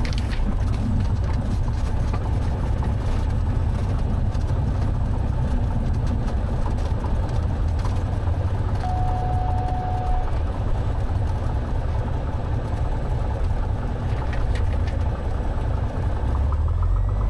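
Cessna 182's piston engine and propeller running at low power while the aeroplane taxis, a steady low drone heard inside the cabin. A short steady tone sounds about nine seconds in.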